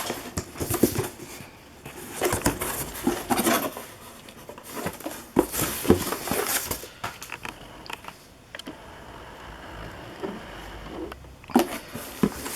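A shipping box being opened and unpacked by hand: irregular rustling and crinkling of packing material and cardboard, with scattered light knocks and clicks. The handling is busiest in the first half and quieter for a few seconds near the end.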